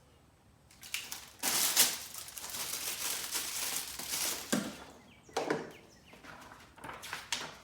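Rustling and handling noise, likely packaging being moved around on a newly unboxed planer: one long rustle of about three seconds, then a few shorter ones.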